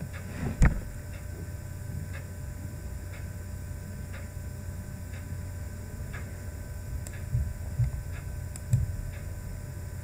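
Room tone: a steady electrical hum with a faint tick about once a second, and a few low thumps, the loudest just under a second in.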